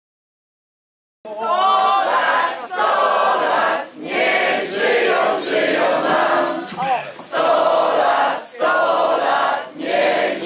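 A group of people singing or chanting together in phrases, starting after about a second of silence.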